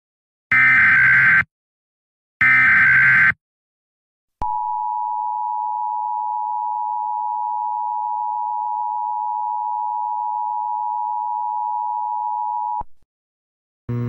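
Emergency Alert System broadcast signal: two short SAME header data bursts, each about a second long, then the EAS two-tone attention signal (853 and 960 Hz together), a steady tone held for about eight seconds that cuts off abruptly.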